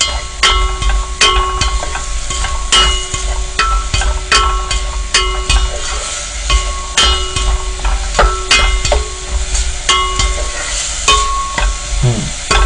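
Beef being stir-fried in a pot over low heat: a plastic spatula knocks and scrapes against the pot about once a second, and each knock leaves the pot briefly ringing, over a light sizzle.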